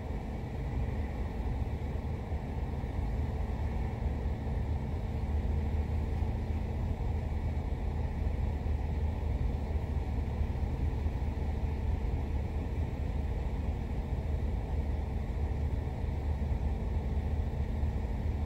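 Car engine idling, a steady low rumble heard from inside the cabin with the driver's window down, with a faint steady hum above it.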